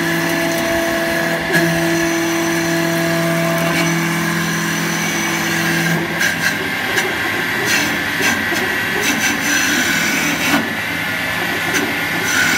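Four-axis CNC wood lathe running: a steady motor whine for about the first half, which stops, giving way to a rougher, uneven machining noise with scattered sharp clicks.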